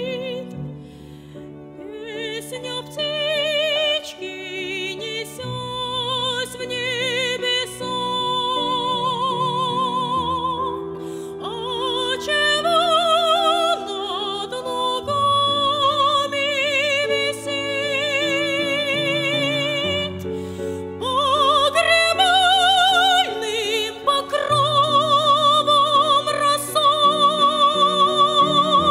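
A woman singing a classical song in operatic style, her voice high and held with a wide, even vibrato, over sustained instrumental accompaniment.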